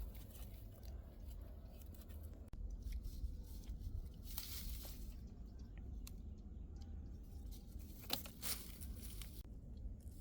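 Faint rustling, crinkling and scraping of material being handled, with two louder, brief rustling surges about four and eight seconds in.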